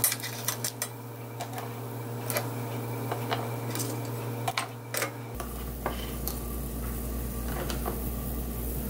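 Metal kitchen tongs clicking and clinking against scallop shells as baked scallops are picked up one at a time and set down on a wooden board, a string of light irregular taps. A low steady hum runs underneath.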